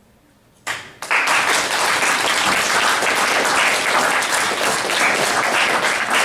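Audience applauding: a roomful of people clapping, starting about a second in and carrying on steadily.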